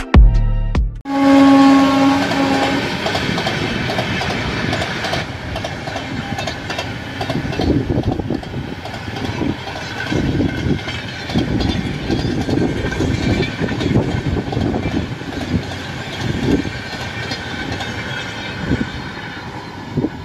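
Sachkhand Express passenger train: a horn sounds once for about two seconds, then the coaches run past with a steady rumble and a clatter of wheels over rail joints, easing slightly near the end.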